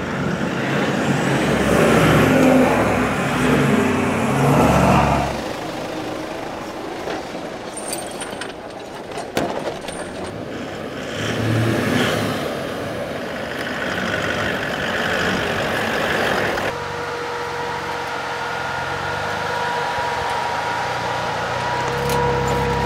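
A four-wheel-drive vehicle crawling along a slow, rough track in low range, its engine running under scattered knocks and rattles. About three quarters of the way through a steady whine sets in and holds.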